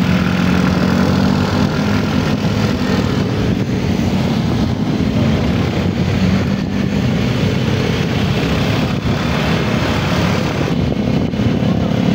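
Motorcycle engine running steadily at low road speed, with wind and road noise.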